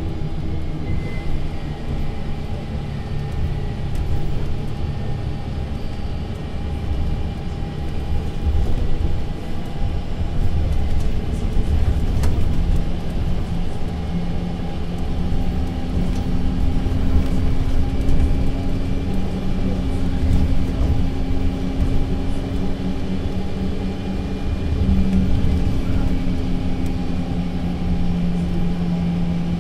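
Mercedes-Benz Citaro C2 LE city bus's diesel engine and Voith automatic gearbox running on the move: a steady low rumble with humming tones that drift in pitch and loudness, a second, higher hum joining about halfway through.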